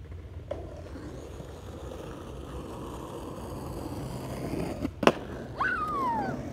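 Small plastic cruiser skateboard's wheels rolling on asphalt, growing louder as the board comes closer. About five seconds in there is a single sharp clack of the board, followed by a short cry that falls in pitch.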